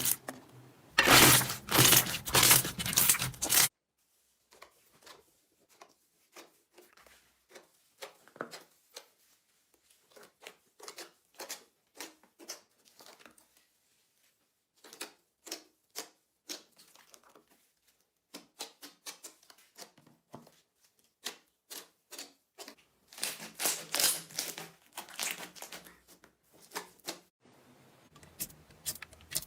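Slime being squeezed and pressed by hand, giving crackling, popping clicks. They are loud for the first few seconds, faint and scattered through the middle, and loud again a little before the end.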